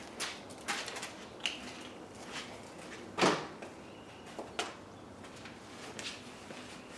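A few scattered light knocks and clicks from pump parts being handled and set down during reassembly, with one louder knock about three seconds in.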